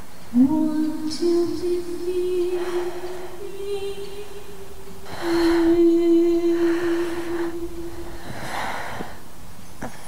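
Soundtrack music: a woman's wordless voice humming a slow, lullaby-like melody in a few long held notes, sliding up into the first about half a second in, with soft hissing swells between the notes.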